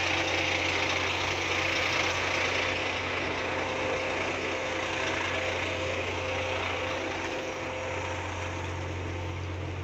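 A heavy diesel engine idling steadily. A rushing hiss comes in suddenly at the start and slowly fades over the next several seconds.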